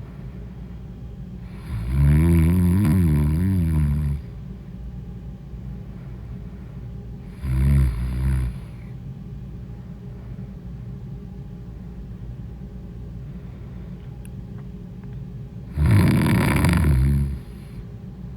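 A woman snoring loudly: three snores, the first long, the second short, the third near the end. A steady low hum runs between them.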